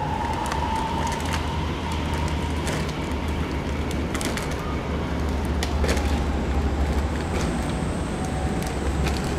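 Diesel locomotive approaching, its engine a steady low rumble, with the tail of a long horn blast fading out in the first couple of seconds.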